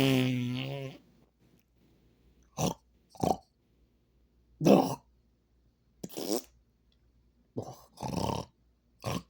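A man making sleeping-husband body noises: a drawn-out voiced noise about a second long, then a string of about seven short breathy noises at irregular gaps.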